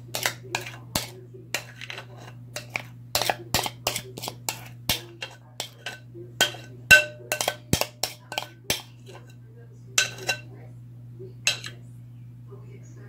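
A metal utensil scraping and tapping against a mixing bowl as thick cake batter is emptied out: an irregular run of sharp clicks and clinks, some ringing briefly, thinning out near the end, over a steady low hum.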